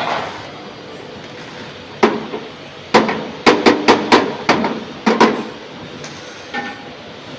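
A hammer striking metal about ten times in an irregular run, each blow ringing briefly, a common step in sheet-metal box fabrication.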